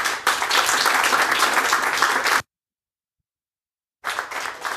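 Audience applauding, many hands clapping. The sound cuts out suddenly about two and a half seconds in to dead silence, and the applause comes back, quieter, near the end.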